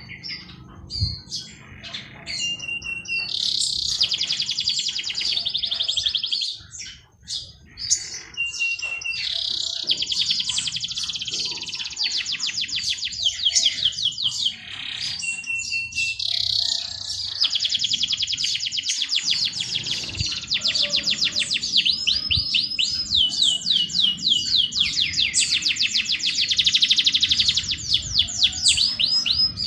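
A songbird singing long, fast trills of rapidly repeated high notes, each lasting several seconds. Some trills open with a short held whistle, and brief chirps fall between them.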